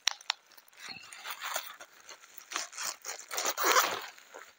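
Plastic packaging bag crinkling and rustling as a trailer tail light is pulled out of it, in uneven bursts with a couple of sharp clicks near the start; the rustle is loudest shortly before the end.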